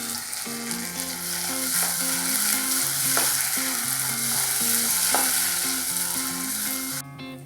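Chopped onions frying in oil in a pan, sizzling steadily as they are stirred, with a few sharp scrapes of the spoon. The sizzle cuts off abruptly about seven seconds in.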